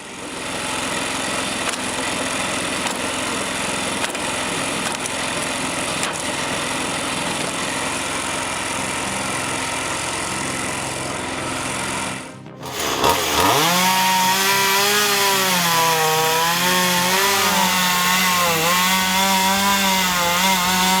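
Steady, noisy machine running, then after an abrupt break about two-thirds of the way through, a chainsaw engine runs with its pitch wavering up and down, as it does under load while cutting wood.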